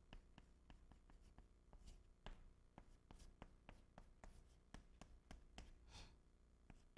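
Faint chalk on a chalkboard as Chinese characters are written: many quick taps and short strokes, with a few longer scratches, the longest about six seconds in.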